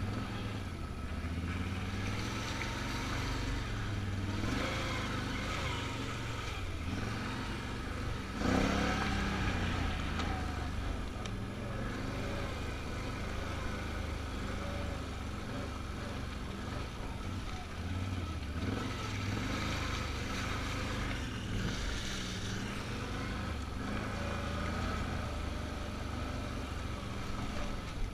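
Can-Am Outlander ATV engine running under a rider on a dirt trail, its speed rising and easing as it goes. A sudden thump about eight and a half seconds in stands out as the loudest moment.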